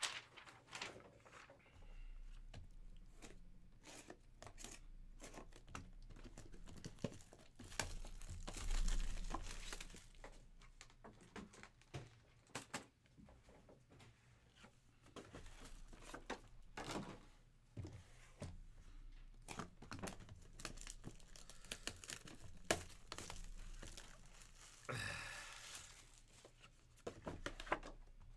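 Clear plastic shrink-wrap crinkling and tearing as a sealed trading-card box is unwrapped, with scattered clicks and knocks of the cardboard box being handled. The loudest rustling comes about nine seconds in and again near the end.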